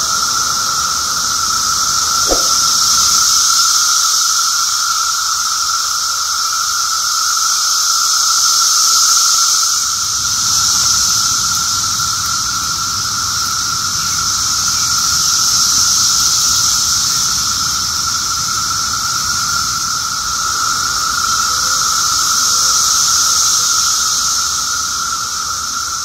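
Chorus of periodical cicadas: many males calling at once with their tymbals, a loud, steady, high drone that swells and fades slowly every six or seven seconds. These are the males' mating calls.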